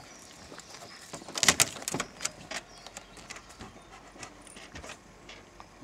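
German Shepherd dogs moving about on a car boot floor: claws clicking and a chain collar jingling, with a clatter of sharp knocks about a second and a half in.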